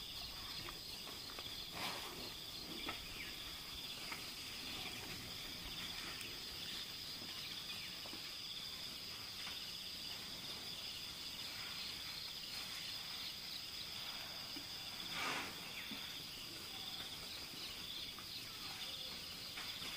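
Steady chorus of forest insects: a shrill, continuous drone in two high pitches. Brief knocks break through about 2 s in and again, louder, about three-quarters of the way through.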